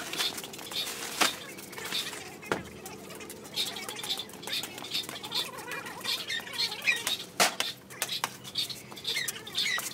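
Small birds chirping over and over in short, high calls, with a few sharp clicks or knocks scattered among them.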